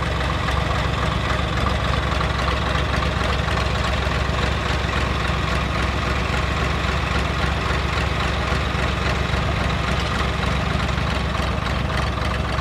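Tractor diesel engines idling steadily at an even pitch.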